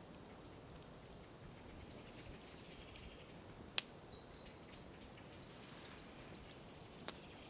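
A small songbird singing two runs of about five quick repeated high notes, with one sharp pop from the burning campfire about halfway through and a fainter one near the end.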